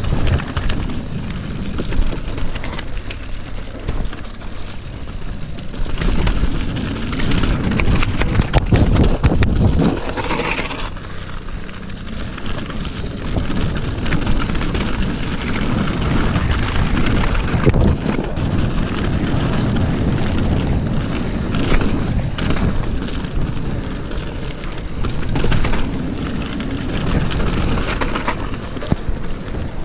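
Downhill mountain bike descending a rough, rocky trail: tyres grinding over stones and the bike rattling with constant small knocks and clicks, under steady wind buffeting on the camera microphone.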